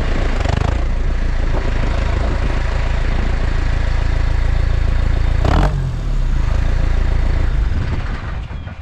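New Holland T5050's four-cylinder diesel engine running steadily, heard close to its upright exhaust pipe while the tractor moves. A brief sharp clatter sounds about five and a half seconds in, and the engine sound dies away over the last second.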